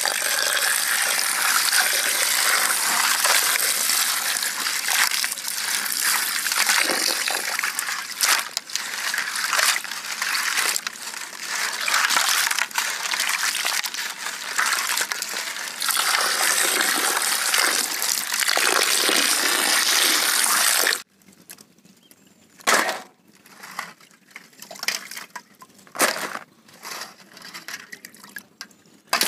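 Water pouring and splashing into a steel bowl as raw sea crabs are washed in it by hand. About 21 seconds in, the pouring stops abruptly, leaving a few short, scattered splashes and knocks.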